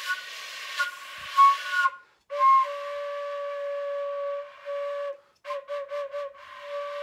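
Flute played by blowing through a drinking straw poked through a cloth face mask: breathy held notes on one pitch with a lot of air noise, broken by short gaps, and a run of about four short tongued notes around six seconds in. The straw is not yet sealed at the mask or the mouthpiece.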